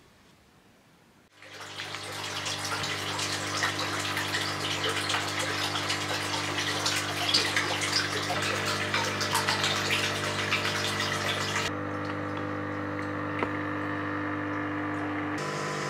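Water pouring and splashing from a hose into a tank, over the steady hum of an electric water pump, starting about a second in. Near the end the splashing drops away and the pump hum carries on.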